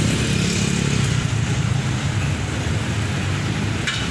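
Road traffic: vehicle engines running close by in a steady rumble, with a short hiss shortly before the end.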